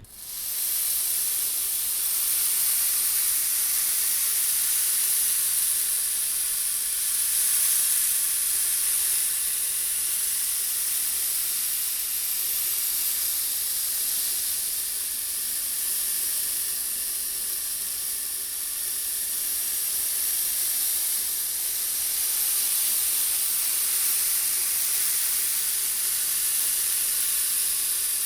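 Many small steel balls rolling round and round inside a brass bowl, kept tilted by a motor-driven disc, making a steady, dense, high hiss like rain.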